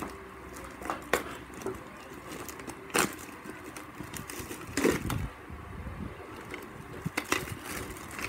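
A clear plastic bag and a plastic container handled, giving scattered crinkles, clicks and light knocks. The loudest is a knock about five seconds in.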